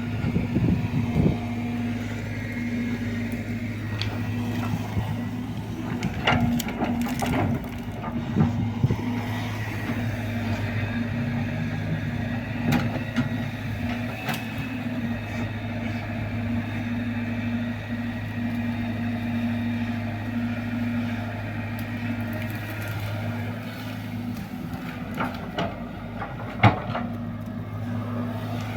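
Excavator diesel engine running steadily while digging, with scattered sharp knocks and clanks, the loudest near the end.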